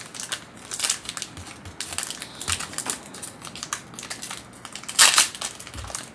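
Foil wrapper of a 2018 Select Football card pack being crinkled and torn open by hand. It makes irregular crackles throughout, with the loudest burst, the rip, about five seconds in.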